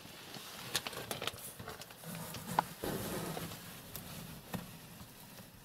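Cardboard box being handled: faint rustling with a few sharp, light clicks and taps scattered through it.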